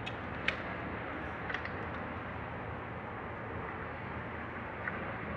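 Steady background noise with a few light, sharp clicks, like small metal parts or tools being handled during engine disassembly.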